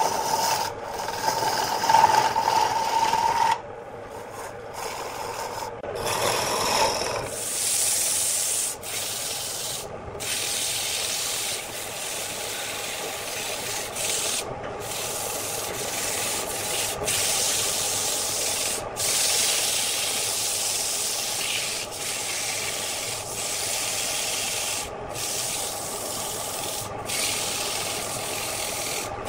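A hooked hollowing tool cuts inside a spinning wooden piece on an electric lathe, with a steady ringing tone for the first few seconds. Then sandpaper is held against the spinning piece: a steady rubbing hiss over the lathe's running, broken by a few brief gaps.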